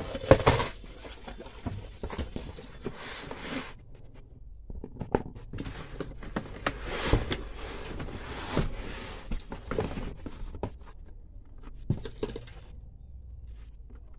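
Scissors cutting packing tape on a cardboard carton, and cardboard scraping and rustling as the product box is slid out, with scattered sharp knocks. There is a short lull about four seconds in, and it goes quieter near the end.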